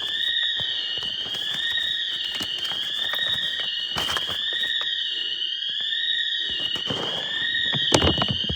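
Store alarm siren sounding continuously, its piercing tone sweeping up and down in pitch about once a second. A few knocks are heard, the loudest near the end.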